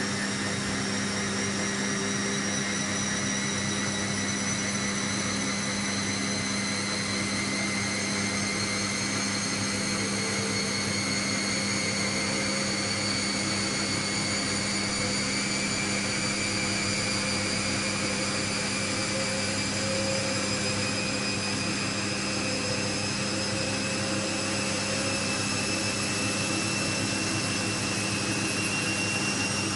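Siemens Siwamat 6127 front-loading washing machine on its final spin: the motor's whine rises slowly as the drum gathers speed, over a steady hum.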